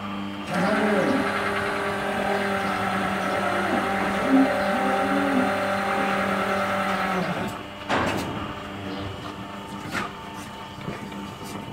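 Hydraulic power unit of a cattle hoof-trimming crush running with a steady hum; from about half a second in until about seven seconds it runs louder and fuller under load as the valves are worked to move the cylinders, then drops back to the plain hum. Two sharp metallic knocks follow near the end.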